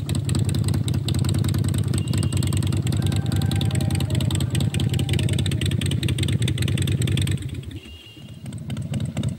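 Motorcycle engine running, with a dense stream of rapid firing pulses. It drops away about seven and a half seconds in, then picks up again.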